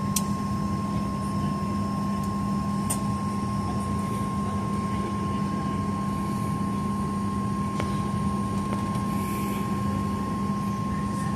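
Steady cabin drone inside a Boeing 737-900ER airliner, an even rumble with a low hum and a higher held tone running through it. A couple of short clicks stand out near the start and about three seconds in.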